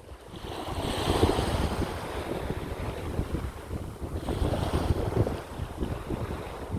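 Sea waves washing on the shore, a surge of hiss building about a second in and fading, then a second smaller surge about four seconds in, under a constant low rumble of wind buffeting the microphone.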